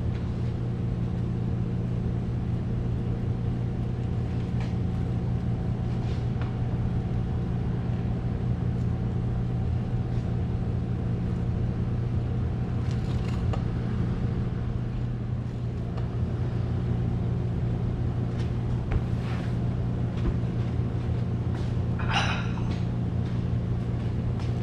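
Steady low mechanical hum of kitchen machinery, such as a ventilation fan or refrigeration unit, running without change, with a few faint knocks and a short rushing noise about 22 seconds in.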